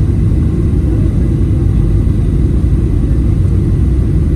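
Steady low rumble of engine and airflow noise inside the cabin of a Boeing 737 airliner descending to land.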